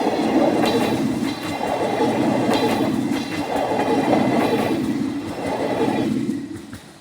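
Wheels of a steam-hauled passenger train rolling past, clattering over the rail joints in swells about every second and a half. The sound drops away sharply about six and a half seconds in as the end of the train goes by.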